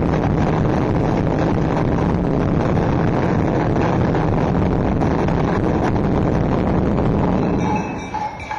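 Loud, dense festival drum-and-percussion music accompanying a tribe's street dance, thick with low drum hits. It drops away suddenly near the end.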